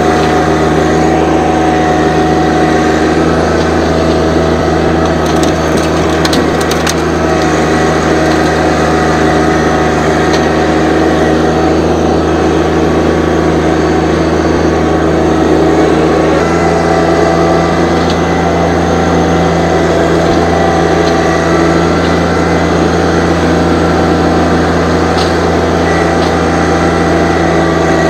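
John Deere 1025R subcompact tractor's three-cylinder diesel running steadily under load while the front loader pushes into a brush pile. Branches crack and splinter, with a few sharp snaps early on, and the engine note shifts slightly about halfway through.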